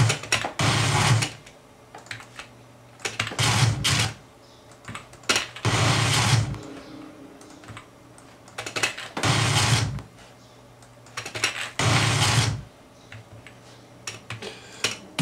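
A big, low sound-effect boom hit, about a second long, played five times a few seconds apart. Computer keyboard clicks fall in the gaps between plays.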